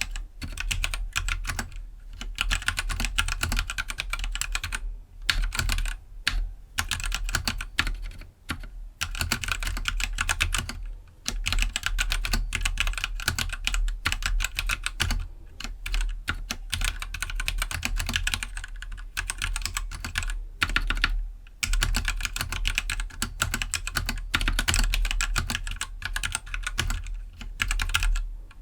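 Typing on a stock Keydous NJ68 65% mechanical keyboard with Gateron Black linear switches: a fast, continuous stream of keystrokes broken by short pauses every few seconds.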